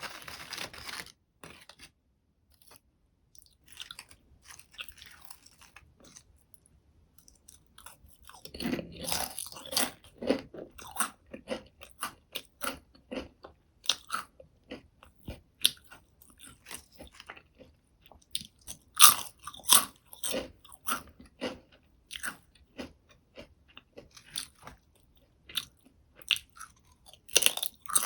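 Close-miked crunching and chewing of salty potato chips: sharp, crisp crunches that come sparsely at first and then in quick, dense runs from about eight seconds in, with a few louder bites.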